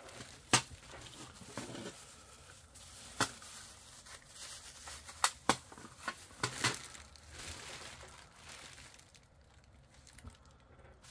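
Plastic and bubble-wrap packaging being handled and crumpled, a soft crinkling broken by several sharp crackles, quieter over the last few seconds.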